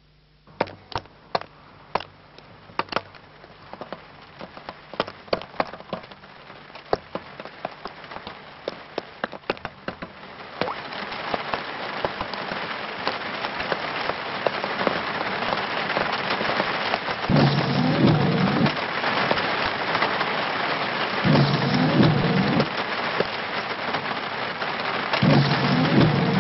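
Rain beginning as scattered single drops striking a surface, then building after about ten seconds into a steady heavy downpour. In the second half, three low rumbles come about four seconds apart.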